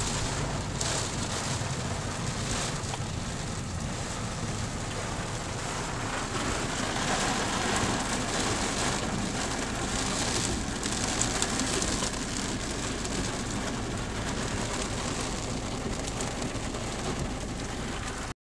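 Heavy thunderstorm downpour: dense rain pouring down steadily, swelling a little in strength now and then.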